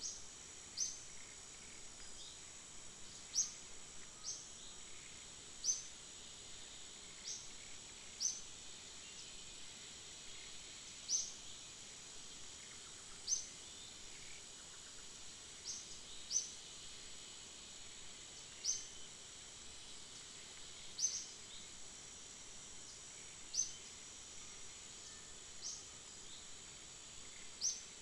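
Outdoor ambience: a steady high insect drone, with a bird repeating a short, high, upward chirp every second or so.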